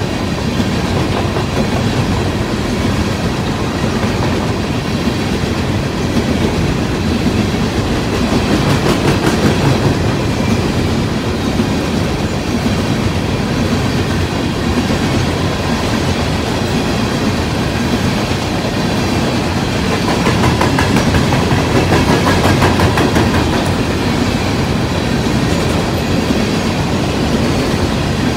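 Freight train of coal hopper cars rolling past close by: a steady rumble of steel wheels on the rails with rhythmic clickety-clack over the rail joints, swelling slightly twice.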